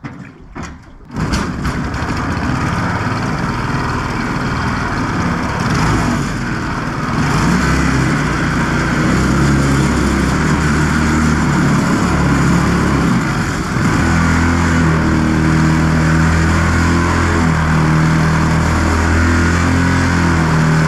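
A 212cc single-cylinder 6.5 hp inboard engine is started and catches about a second in. It then runs hard, picking up speed about two-thirds of the way through. Its surface-drive propeller churns and sprays water out of the test tank.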